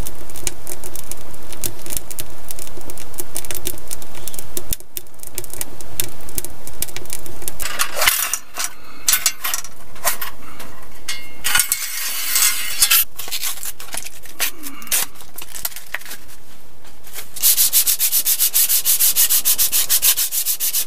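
A wood fire crackling in a tent stove for the first few seconds. Then a cloth rubbing abrasive metal polish along a bow saw's steel blade, in scraping strokes that become quick and rhythmic near the end.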